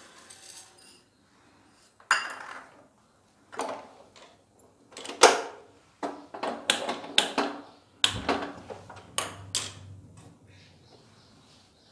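Split moong dal grains pattering faintly into a nonstick pan at the start, then irregular sharp clicks and clatters of kitchenware, a dozen or so, most of them between five and ten seconds in.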